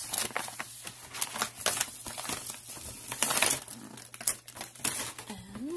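Padded mailer envelope crinkling and rustling as it is handled and pulled off a boxed item, in a dense run of irregular crackles.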